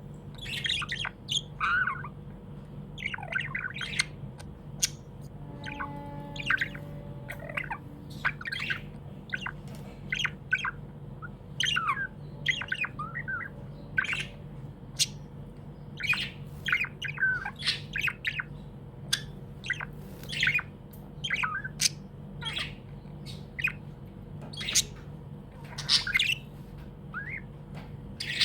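Budgerigar chirping and squawking in a quick, irregular run of short calls, over a steady low hum.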